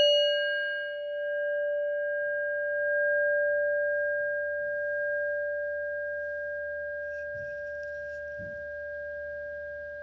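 A struck bell tone ringing out and slowly fading. Its high overtones die away within the first few seconds while the main tone holds, swelling gently a couple of times.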